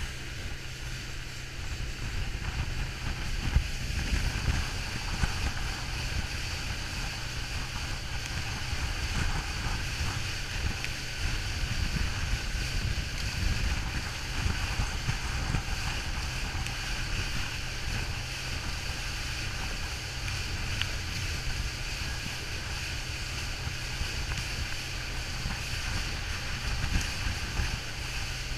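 Speedboat's outboard motor running steadily at speed, a constant low hum, with wind buffeting the microphone and water rushing along the hull and wake.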